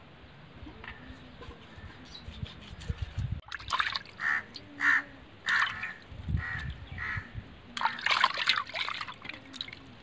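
Water splashing and trickling in a metal bowl as hands rub and rinse pieces of fish, in short, uneven splashes that start about a third of the way in.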